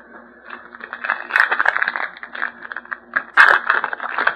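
Trading cards and foil card-pack wrappers being handled: a run of rustling and crinkling with small clicks, growing louder about three and a half seconds in.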